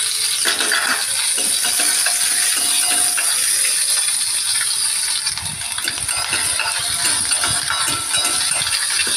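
Sliced onions frying in hot oil in a metal kadai: a steady sizzling hiss, with a metal spoon scraping and clinking against the pan as they are stirred.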